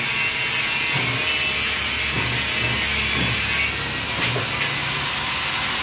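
Motorcycle tyre being fitted onto an alloy wheel on a tyre changer: a steady scratchy rubbing of the rubber bead against the rim and the machine's mount head. The rubbing changes character about two-thirds of the way through.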